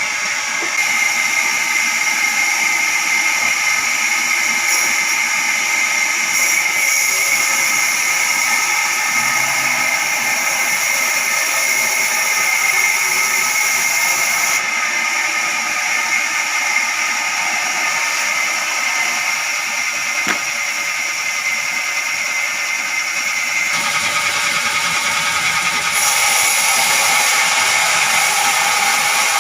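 Wood-cutting machinery running steadily with a high-pitched whine. The sound changes abruptly a few times.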